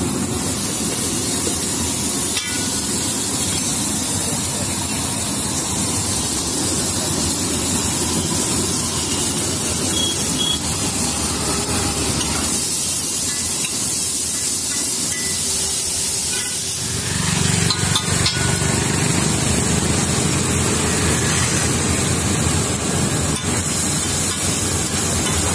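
Chopped onions and tomatoes sizzling on a large hot iron griddle (tawa), a steady hiss, with a few sharp clicks of a metal spatula. A low rumble comes in about two-thirds of the way through.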